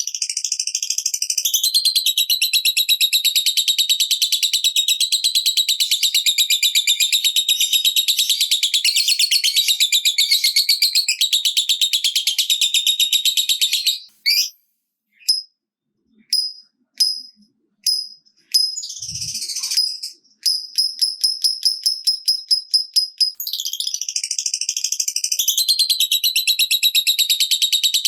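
Lovebird giving its long 'ngekek' chatter: a loud, high, very rapid trill. About halfway it breaks into short bursts and a quick run of ticks, then the continuous trill resumes near the end.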